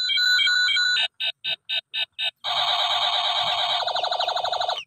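Battery-powered Spider-Man toy pistol playing its electronic firing sound effects. First a pulsing tone, then a run of short beeps at about four a second, then a dense buzzing warble that shifts lower and cuts off suddenly near the end.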